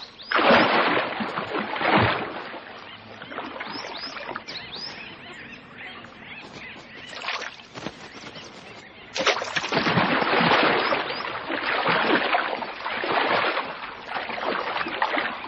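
Water splashing as bee-eaters dip onto the surface of a pool and a crocodile lunges at them. There is a burst of splashing near the start and a longer stretch of heavier splashing in the second half, with small high chirping bird calls.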